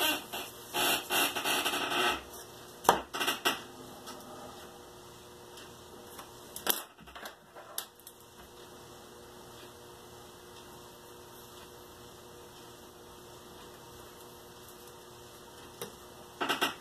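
Steady faint electrical hum, broken by short rustles and knocks of paper and a plastic ruler being handled: a cluster in the first two seconds, more around three and seven seconds, and one more at the very end.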